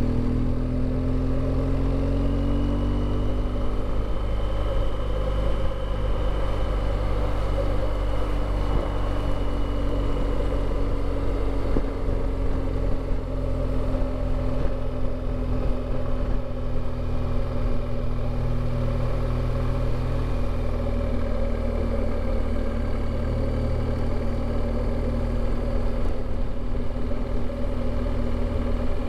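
BMW R1200GS LC's boxer-twin engine running under way at a steady pace. Its pitch sinks a little in the first few seconds, then holds.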